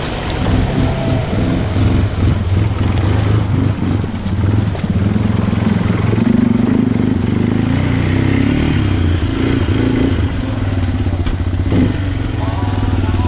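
Single-cylinder ATV engine running under throttle, its pitch rising and falling as it is revved.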